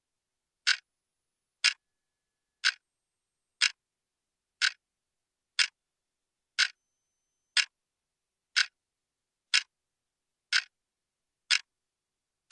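Clock ticking, one sharp tick about every second, over dead silence.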